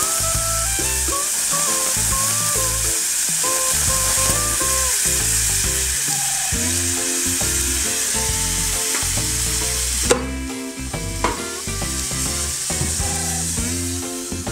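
Liquid nitrogen poured onto a cream cake, hissing and sizzling steadily as it boils off. The hiss cuts off abruptly about ten seconds in, and a few light clicks and clinks of the metal cup follow. Background music plays throughout.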